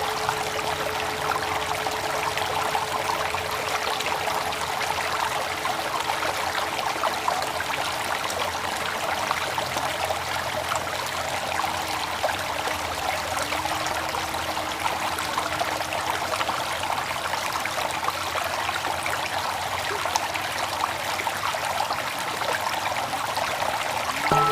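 Steady flowing water, like a small stream. The pulsing hum of a meditation bell dies away in the first few seconds, and a faint low tone wavers underneath.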